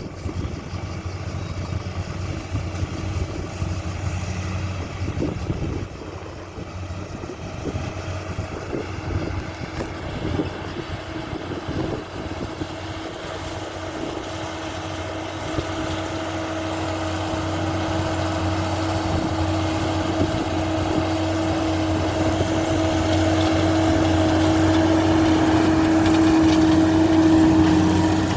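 Fendt 712 tractor's engine running at a steady pitch while pulling a Supertino big square baler through straw, with scattered knocks early on. The sound grows steadily louder until near the end.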